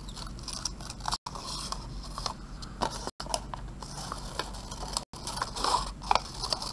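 Scissors cutting through a sheet of white paper in a series of short, irregular snips.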